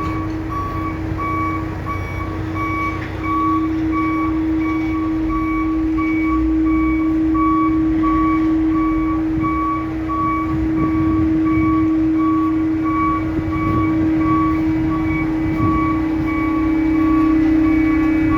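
Heavy cargo-handling machinery running with a low engine rumble and a steady hum, under a repeating warning beeper that pulses about twice a second.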